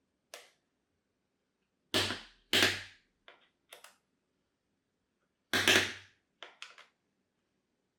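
A string of sharp knocks and clicks as hard objects are handled and set down on a work surface during a teardown. Three of the knocks are loud: one about two seconds in, another half a second later, and one a little past the middle. Fainter clicks fall between them.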